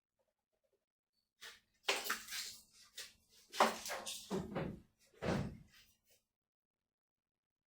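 A run of clunks and knocks, several in quick succession, starting about a second and a half in and stopping about six seconds in.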